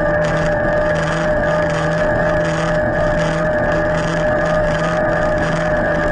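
Electric mountain bike's drive motor whining steadily under full Turbo-mode assist on a climb. A lower hum under the whine pulses about twice a second.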